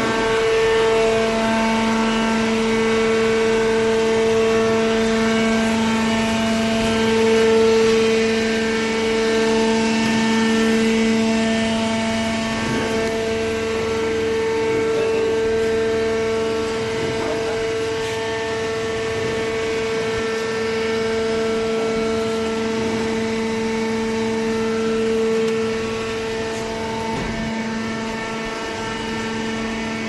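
Electric motor and hydraulic pump of a shredded-paper hydraulic baling press running, a steady hum held at one pitch throughout.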